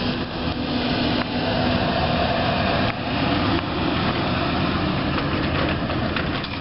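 Articulated M-A-N electric trolleybus passing at close range: a steady hum and whine from its electric drive over the noise of its rolling tyres.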